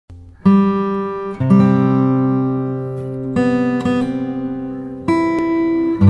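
Background music: slow chords struck one at a time and left to ring out, four of them, each fading before the next.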